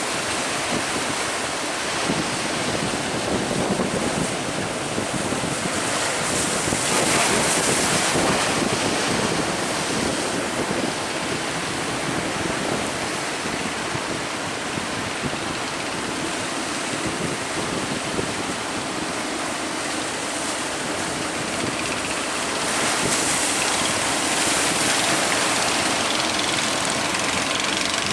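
Rough sea waves and wind, a steady rushing noise that swells about seven seconds in and again from about twenty-three seconds.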